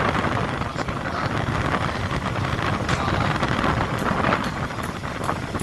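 Steady rumbling noise of a longline fishing boat running at sea, with wind on the microphone and a few light clicks in the second half.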